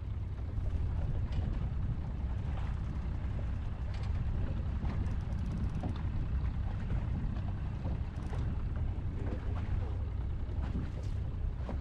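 Steady low rumble of wind and a boat out on the water, with scattered short knocks and taps at irregular moments.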